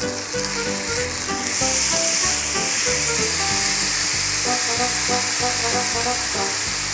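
Raw rice sizzling in hot oil with fried garlic and ginger in a nonstick frying pan as more rice is poured in and stirred with a spatula. This is the dry toasting of the grains before they are cooked with chicken stock. The sizzle grows louder about a second and a half in, over background music.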